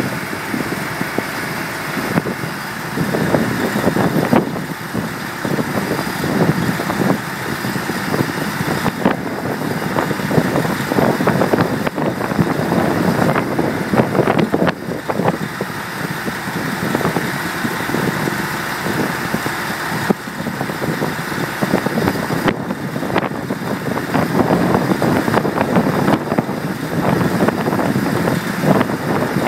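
Workover rig's engine running steadily as the rig hoists a casing jack on its line.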